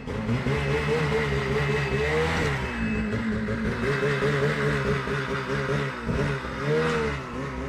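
Snowmobile engine running and being revved, its pitch rising and falling with the throttle.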